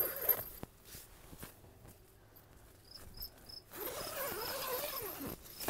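Crickets chirping in short, high, evenly repeated pulses from about halfway in. Over them, the tent's nylon door is handled and pulled open, and the rustle of the fabric and zipper is loudest near the end.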